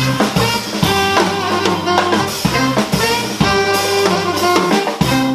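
Swing and R&B band music: a saxophone plays a melody over a drum kit and low held bass notes.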